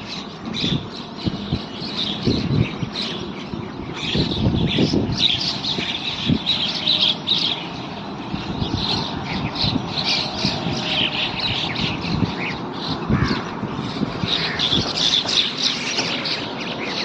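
A group of birds chirping and squawking in many short, overlapping calls, with a few low bumps now and then.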